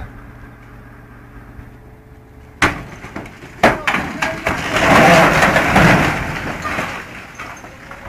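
A portable site cabin breaking in two as a crane lifts it: a steady engine hum, then about two and a half seconds in a sharp crack, a few more cracks, and a loud crunching, splintering collapse that fades out.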